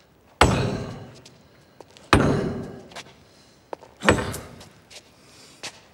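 Heavy blows knocking something down, three of them about two seconds apart, each leaving a long echo as of a large hall.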